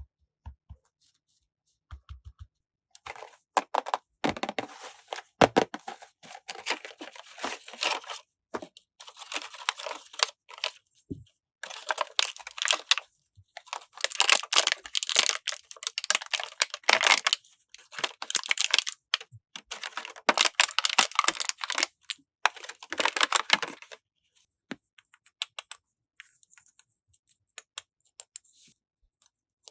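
Plastic packaging crinkling and tearing in repeated handfuls as toy pieces are unwrapped, with small plastic clicks among them; after about 24 s only a few light clicks remain.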